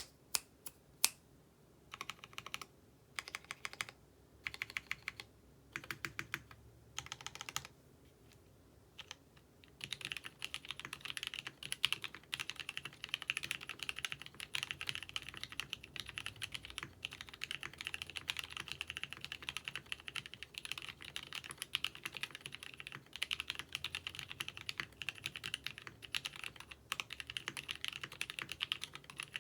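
Custom ABKO AR87 mechanical keyboard with lubed Gateron Red linear switches, GMK keycaps and an aluminium plate and case, being typed on. It starts with a few single keystrokes, then several short bursts of rapid keystrokes, then continuous fast typing from about ten seconds in.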